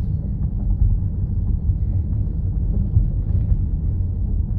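A car driving along a paved road: steady low road and engine rumble.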